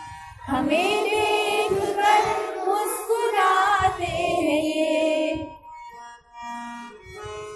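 A voice singing a line of an Urdu poem in long, wavering held notes over soft instrumental backing music. The singing starts about half a second in and stops about five and a half seconds in, leaving the backing music alone.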